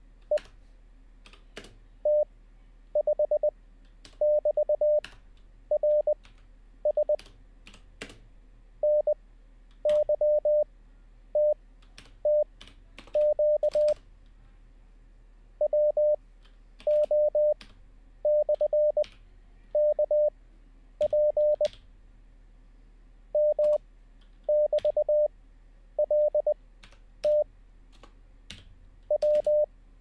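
Morse code practice audio: a single steady beep keyed into dots and dashes at 20 words per minute character speed, one character at a time with long pauses between characters (Farnsworth spacing). Computer keyboard keystrokes click in the gaps as each character is copied.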